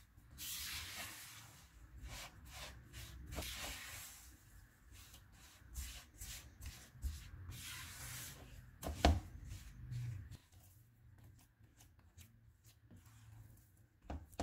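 A silicone spatula stirs and scrapes a thick milk-powder burfi dough, with sugar in it, around a nonstick pan. It makes a quick run of scraping strokes, with one sharper knock about nine seconds in.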